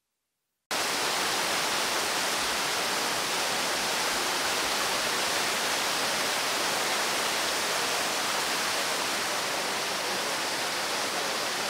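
Steady rushing of muddy floodwater pouring over rocks in a swollen stream, starting suddenly just under a second in.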